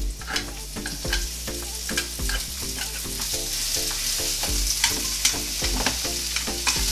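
Sliced onion sizzling in hot oil in a frying pan, stirred with wooden chopsticks that click against the pan; the sizzle grows louder about three seconds in. A background music track with a steady beat plays underneath.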